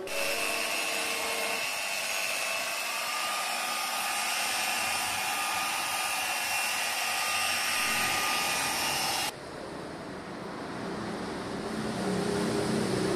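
Handheld electric machine polisher with a foam pad running steadily against car paint: a loud motor whine over a rushing hiss. About nine seconds in it cuts off abruptly, leaving a quieter, lower steady hum.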